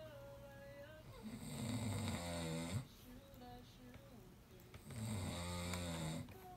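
Snoring: two long snores, each lasting about a second and a half, about three and a half seconds apart.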